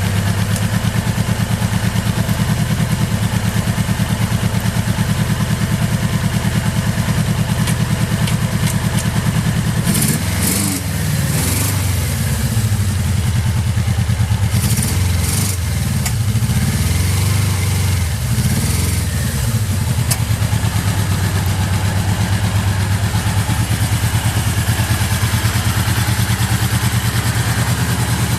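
Suzuki GS750G air-cooled inline-four motorcycle engine idling steadily, then blipped on the throttle several times from about ten seconds in, rising and falling in pitch, before settling back to idle. It runs with no abnormal noise.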